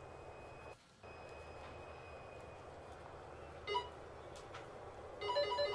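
Low steady background hum, broken by a short electronic beep about two-thirds of the way through, then near the end a rapid pulsing run of electronic beeping tones at several pitches.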